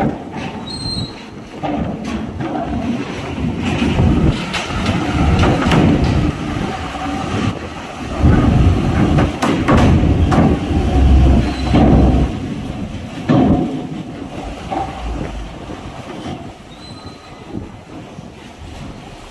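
Heavy trucks climbing a steel ferry loading ramp: deep diesel engine rumble with repeated clanks and metallic rattling as the wheels roll over the ramp's steel plates and joints. It is loudest in the middle and eases off toward the end.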